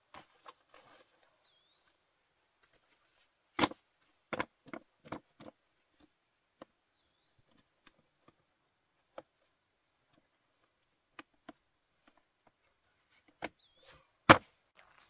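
Sharp clacks and knocks as a folding camp table is set up, its top and frame knocking together: a quick run of them a few seconds in and the loudest two near the end. Insects chirp steadily in a fast, even pulse behind.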